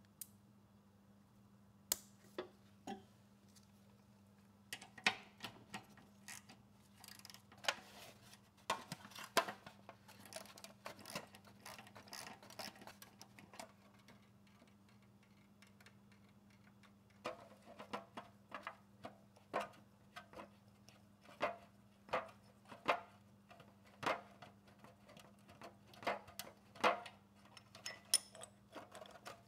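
Irregular light clicks and clinks of a small wrench loosening the float bowl nut on a lawn mower carburetor, and of the metal bowl and tool touching an aluminium foil drip tray, over a faint steady hum.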